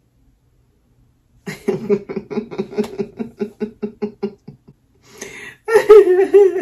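A woman laughing: after a brief quiet, a run of quick, even 'ha-ha' pulses, about five a second, then a breath in and a longer, louder laugh near the end.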